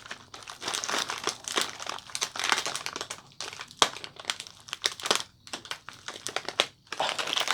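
Crinkly plastic snack packaging rustling and crinkling as a sticker is picked and peeled off it, in a run of short rustles broken by brief pauses.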